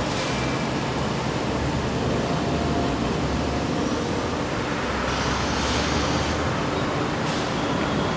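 Steady roadside traffic noise: vehicle engines and tyres rumbling, with a brief hiss about five seconds in.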